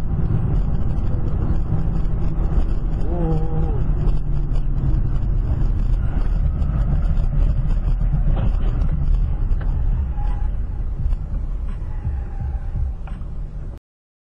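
Steady low rumble of a car driving, heard from inside the vehicle as a dash camera records it. About three seconds in there is a brief wavering tone. The sound cuts off suddenly near the end.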